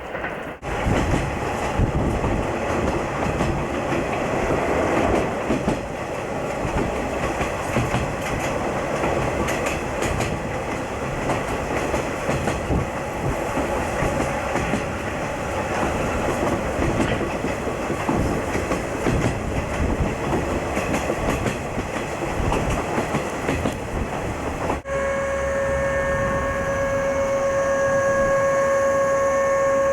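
Train running on the rails with clickety-clack over the rail joints. After a sudden cut near the end, it gives way to a steady whine of a few pitches held together.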